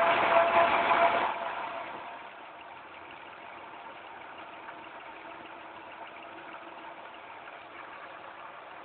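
2005 Pontiac Grand Prix GTP's supercharged 3.8-litre V6 held at raised revs, with a steady high tone over the engine sound. About a second in it is let off and settles to a steady idle, and the tone is gone. The owner hears this strange noise only at certain RPMs, not at idle, and only after long drives. Removing the supercharger belt did not change it, so it is not the supercharger coupler.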